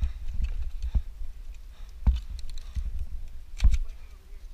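A few scattered sharp clicks and knocks over a steady low rumble.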